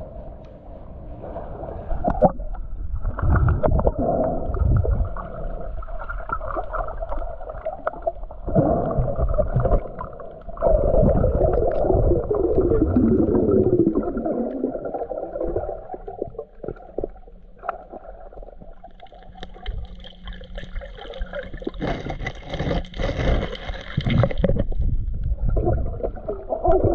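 Muffled underwater sound through a waterproof camera housing: gurgling, bubbling water with uneven swells and lulls.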